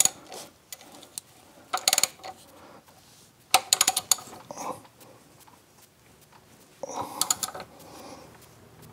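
A socket ratchet clicking in about four short bursts of rapid clicks, with metal clinks, as the engine-mount bolt on a Bobcat skid steer is turned from below.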